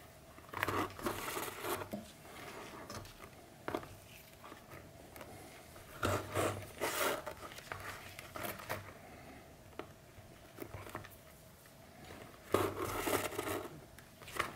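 Thread being drawn through punched stitching holes in leather while hand saddle-stitching with two needles: three louder rasping pulls about five to six seconds apart, with faint needle and handling scratches between them.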